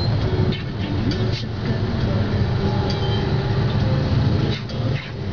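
Dense motorbike and scooter traffic: many small engines running together in a steady low drone, with a few short high-pitched sounds cutting through it.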